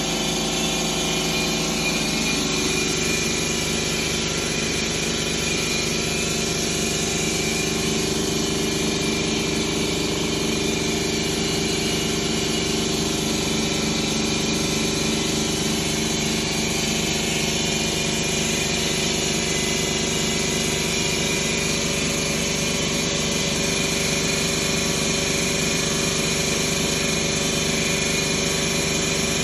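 2011 Ford Escape's 2.5-litre four-cylinder engine running steadily at idle, an engine with a misfire on cylinders 1 to 4.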